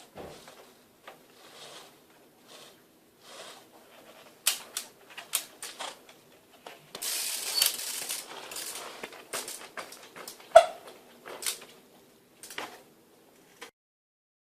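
Irregular clicking and knocking from the front end of a biketrial bike, the abnormal noise of a front part worn after about three years of use, with a longer scraping hiss about halfway through and one sharp loud click a little later.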